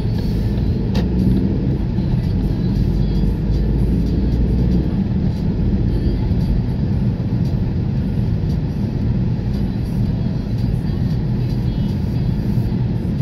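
Car cabin noise while driving at road speed: a steady low rumble of engine and tyres on asphalt, heard from inside the car, with a single sharp click about a second in.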